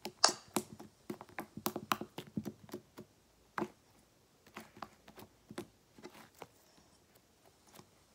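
Sticky fluffy slime being poked and stretched by hand, giving quick sticky clicks and pops that come thick for the first three seconds, then scattered.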